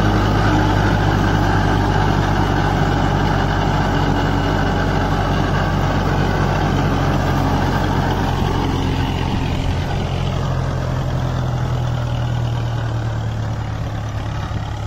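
Kubota MU4501 tractor's four-cylinder diesel engine running steadily under load as it drives an 8-foot rotavator through the soil and drags a disc harrow behind. It fades gradually as the tractor pulls away.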